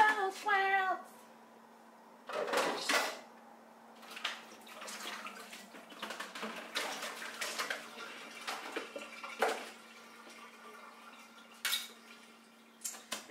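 Dishes being washed by hand in a stainless steel kitchen sink: plates and cutlery clinking and clattering, with a short rush of tap water a couple of seconds in.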